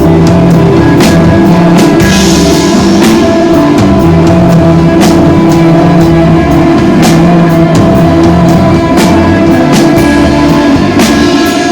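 Live rock band playing an instrumental passage: sustained electric guitar tones over a steadily beating drum kit, with a cymbal wash about two seconds in.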